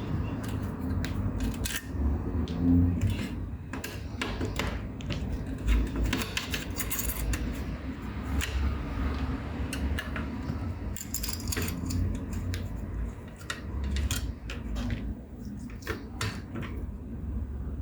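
Irregular small metallic and plastic clicks and clinks of screws, a screwdriver and the fan shroud being handled while a graphics card is taken apart.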